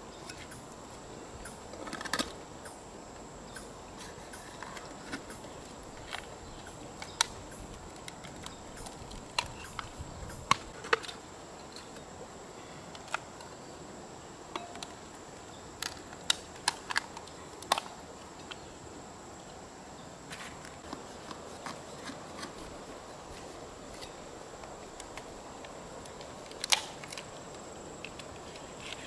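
Scattered sharp clicks and knocks, about twenty spread irregularly with quiet gaps between them, as freshwater mussel shells, a knife and a clay pot are handled and knocked together.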